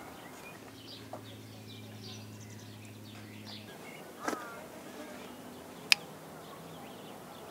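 Small birds chirping, faint and scattered, over a low steady hum that stops a little before the middle; one short sharp click later on.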